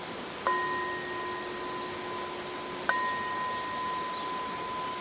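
Prayer bowl (singing bowl) struck twice, about half a second in and again near three seconds, each strike ringing on in long, steady tones over the even rush of a stream.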